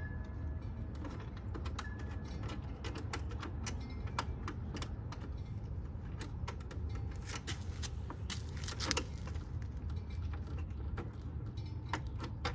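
Irregular small metallic clicks and clinks of hand tools and fasteners as the fairing bolts of a 2007 Kawasaki ZX10R are worked loose, over a steady low rumble.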